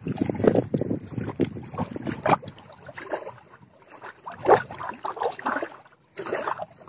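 Wind on the microphone over small waves lapping at the shore, with a brief dropout near the end.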